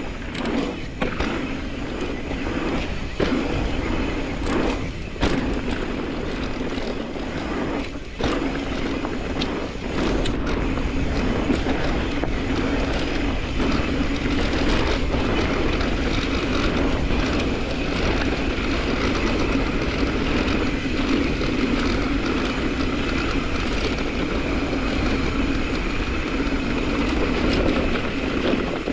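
Mountain bike rolling down a dirt singletrack, heard from the bike: a steady rush of tyre and wind noise with a few clattering knocks over bumps. The rush grows louder about ten seconds in.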